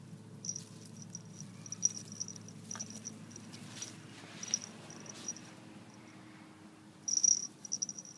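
Small bell on a ferret's collar tinkling in irregular clusters as it digs and scampers, loudest in a burst near the end. Dry grass and leaf litter rustle now and then.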